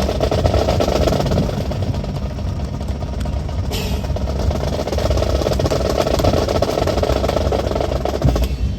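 A steady engine-like rumble, strongest at the low end, with no distinct events.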